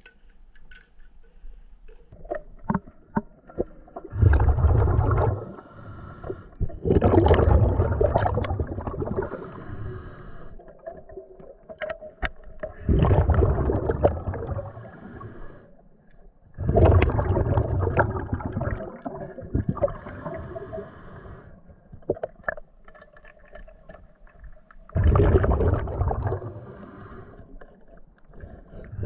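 Scuba diver breathing through an open-circuit regulator underwater: five loud, rumbling bursts of exhaled bubbles a few seconds apart, with a few sharp clicks between them.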